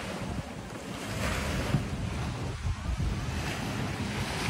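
Wind buffeting the phone's microphone in a steady low rumble, over small waves washing onto a sandy shore in soft surges.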